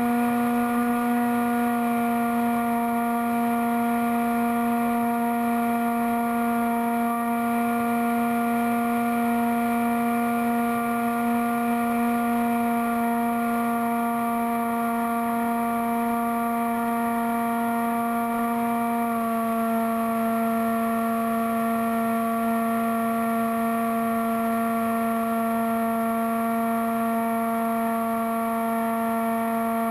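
Bixler foam RC plane's brushless pusher motor and propeller running at cruise, a steady whine heard from the onboard camera. The tone shifts slightly about two-thirds of the way through.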